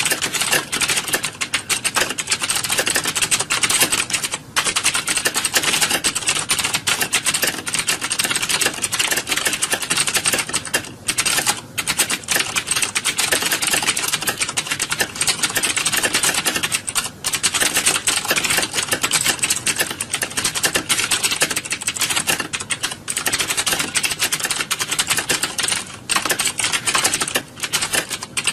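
Many computer keyboards typed on at once: a dense, continuous clatter of key clicks with a few brief lulls.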